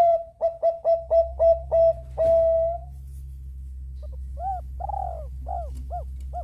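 Zebra dove (perkutut bangkok) cooing: a loud run of about seven short, quick notes ending in a longer held note. From about four seconds in come softer, arched cooing notes, over a steady low hum.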